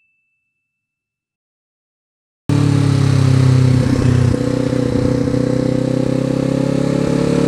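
Silence for about two and a half seconds, then a 2019 Kawasaki Z400 motorcycle's parallel-twin engine with an Akrapovič exhaust running as the bike rides along. Its note changes about four seconds in and then rises slowly as it gains speed.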